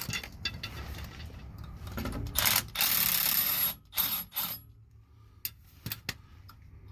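Ratchet wrench clicking in short runs as a bolt is worked loose from the front drive shaft flange, with a louder rasping stretch of about a second partway through and a few sharp metal clicks near the end.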